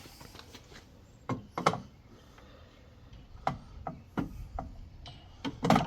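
Several sharp clicks and knocks of metal and plastic parts of a Kuat Piston Pro X hitch bike rack being handled and fitted during assembly, the loudest near the end.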